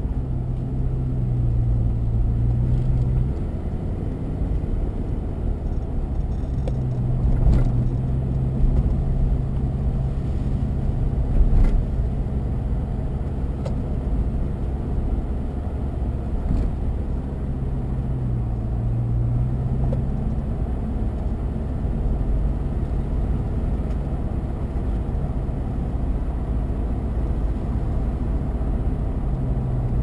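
Car engine and tyre noise heard from inside the cabin while driving slowly on a narrow winding road, a steady low rumble with the engine note rising and falling a little. Two short knocks from bumps in the road come a few seconds apart near the middle.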